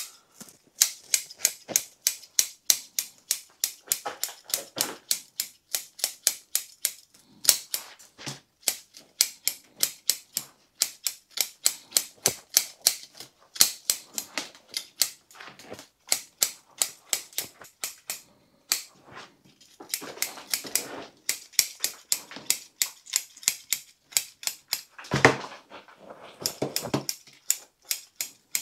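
Root rake scratching and combing through the edge of a bonsai root ball: quick, repeated scrapes, about three or four a second, in runs with short pauses, and one louder knock near the end.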